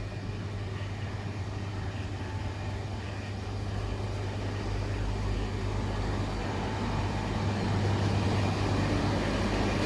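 Steady low mechanical hum over a rushing noise, slowly growing louder.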